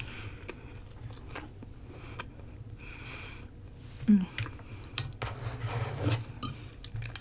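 Knife and fork clicking and scraping against a dish in short scattered strokes while roti is cut, with a couple of longer scrapes in the middle and near the end.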